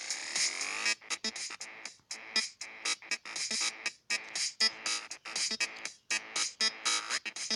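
Electronic dance-style music from a music-making app: choppy, stuttering synth chords over a drum-machine beat, with a rising synth sweep in the first second.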